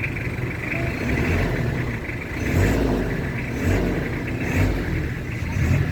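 Toyota Hilux engine running, with several short throttle blips that rise and fall about a second apart.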